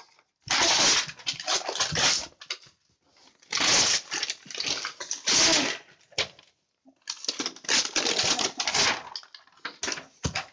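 Brown packing tape being picked at and ripped off a cardboard parcel box, with the cardboard scraping and rustling, in several noisy bursts a second or two long with short gaps between them.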